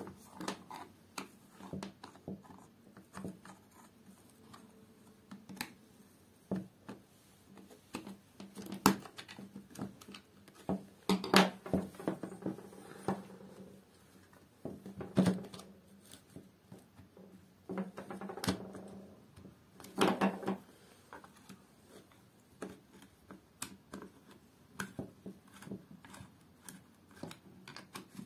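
A corded drill's plastic housing being handled and unscrewed with a screwdriver: scattered small clicks and scrapes of plastic and metal, with several louder knocks as the drill is turned over and set down.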